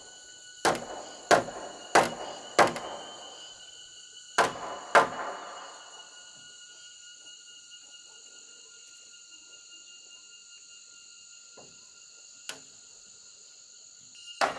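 Six sharp wooden knocks, four evenly spaced about two-thirds of a second apart and then two more, as timber is pounded into a joint of a pole-built wooden roof frame. The knocks stop about five seconds in. Steady high insect buzzing runs under them, with one more light knock near the end.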